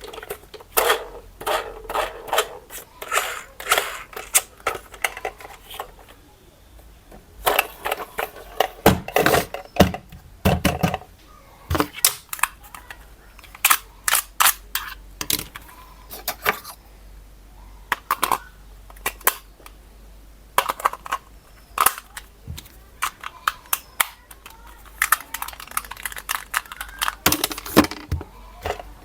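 Hard plastic clicking, knocking and rattling as an RC toy and its packaging are handled, in many short, irregular clicks with some crinkling between them.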